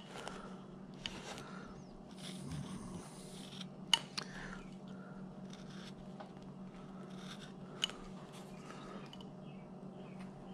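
Carving knife cutting and scraping into a wooden figure in short strokes, with a few sharp clicks from the blade, over a steady low hum.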